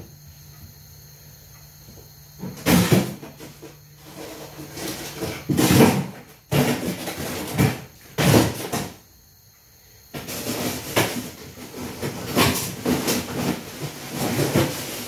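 Rummaging in an under-counter fridge for vegetables: the door and its drawers knock and slide, with irregular clatter and rustling, busiest in the second half.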